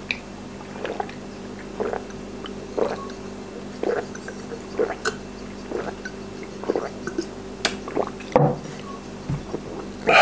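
A man gulping down a 24-ounce bottle of water in one long drink, swallowing about once a second.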